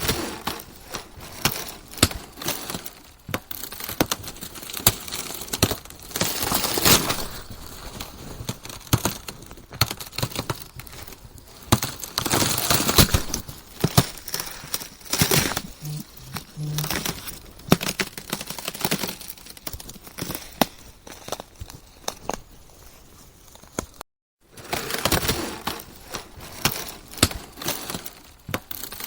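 Ice cracking and crunching: a dense run of sharp cracks and crackles, swelling into louder crunching bursts several times. The sound cuts out briefly about three quarters of the way through, then resumes.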